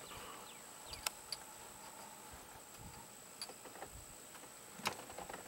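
Quiet background with a few faint, sharp clicks and ticks, more of them near the end, over a thin steady high-pitched whine.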